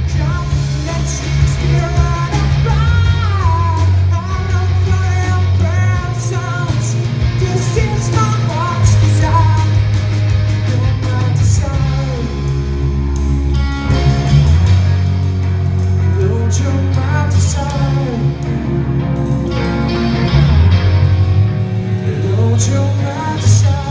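Live rock band playing: a male lead singer over electric guitars, bass and drums, with cymbal hits and a heavy, shifting bass line.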